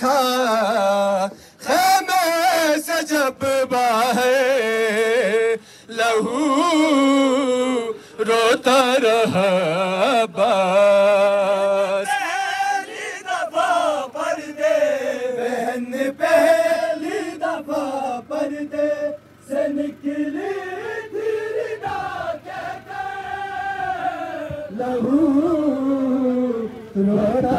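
Noha, a Shia mourning lament, chanted by male voices in a wavering melody that rises and falls, with sharp beats cutting through.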